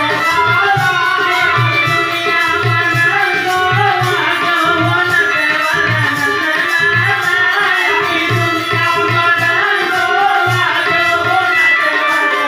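Devotional bhajan music: a hand drum keeps a steady beat under a sung melody.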